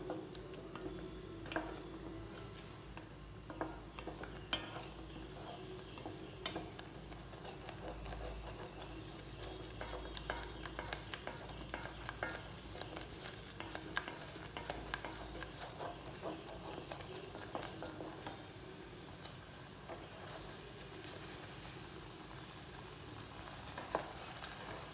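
Wooden spatula stirring a thick, cooking cornflour paste in a stainless steel saucepan, with faint, irregular scrapes and light knocks against the pan.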